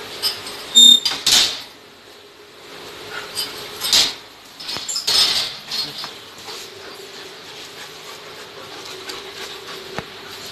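Iron barred gate's sliding bolt drawn back and the gate rattled open, with sharp metallic clanks and a brief ring in the first second and a half. Further rattling scrapes follow about four and five seconds in.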